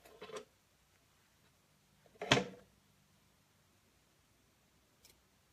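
A few brief knocks from objects being handled and set down: a soft rustling knock at the start, a sharper, louder knock about two seconds in, and a couple of faint clicks near the end.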